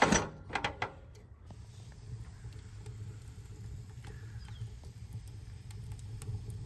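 Steel firebox door of a TMG Pits offset smoker clanking shut with a few metal clicks. A pecan-wood fire then burns inside with a low steady rumble and faint scattered crackles.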